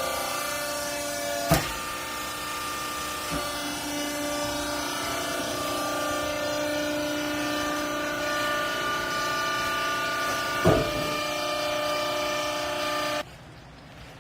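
Hydraulic clothes baler running under load: a steady whine of several tones whose pitches drift slowly, with two sharp knocks. It cuts off suddenly near the end.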